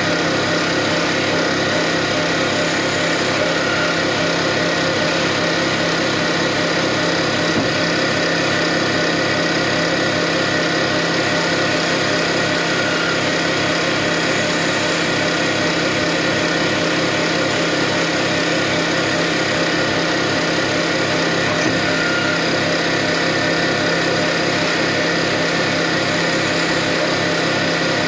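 CNC automatic lathe running steadily: an even machine hum with several held tones and a fast, regular pulse in the low end.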